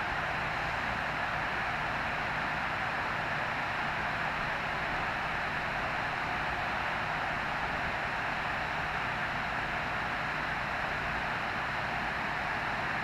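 Steady rush of flowing water below a dam, an even hiss with no breaks or changes.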